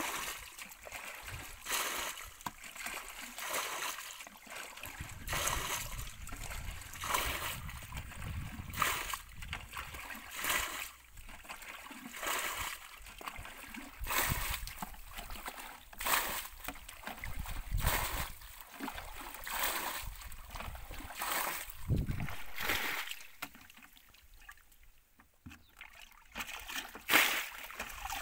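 Hands digging and scooping through wet mud and shallow water, with irregular splashes and sloshes every second or two and a short lull near the end.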